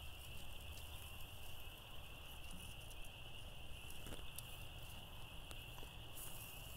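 Faint steady high-pitched chirring of night insects, with a few soft clicks as chicken wings are turned over on a charcoal grill's metal grate.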